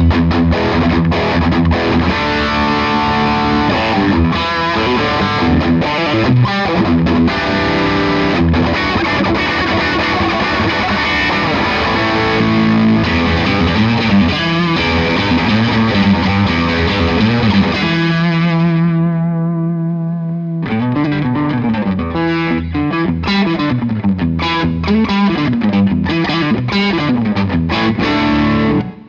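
Electric guitar played through the distortion channel of an Iannucci Audio King of Tone, a Bluesbreaker-style overdrive, with the guitar's volume knob turned up. It plays continuously, lets a chord ring out and fade about two-thirds of the way in, then picks up again.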